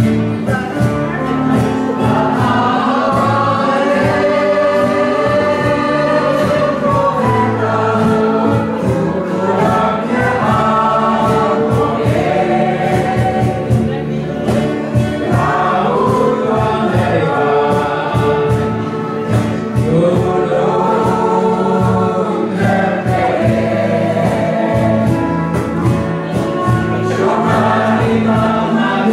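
Indisch choir singing in unison, accompanied by guitars, bass guitar and a steady percussion beat.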